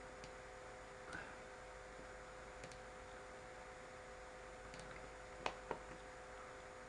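A few faint computer mouse clicks, two close together about five and a half seconds in, over a steady electrical hum and room hiss.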